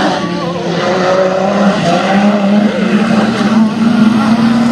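Several six-cylinder dirt-track race cars racing at high revs, their overlapping engine notes rising and falling in pitch.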